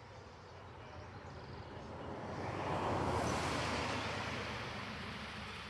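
A vehicle passing by: a rushing noise that swells to a peak about three seconds in and then fades, over a steady low hum.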